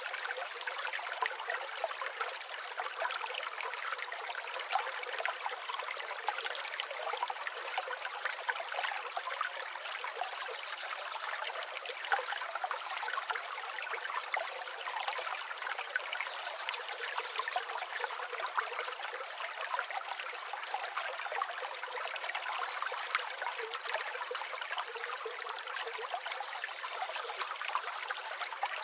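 River water flowing steadily, a continuous babbling rush.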